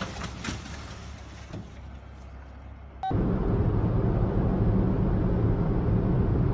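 Steady, loud rumble of road and wind noise from a car moving at highway speed, starting abruptly about three seconds in. Before it comes a quieter rumble with a few faint knocks.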